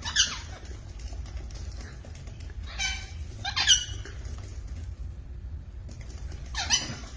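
A parrot giving four short, high, squeaky calls, each falling in pitch, over a low steady hum.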